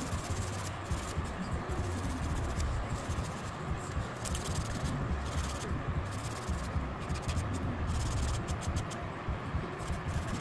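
Nail file rasping against a long nail in repeated short back-and-forth strokes, faster near the end, over a steady low hum.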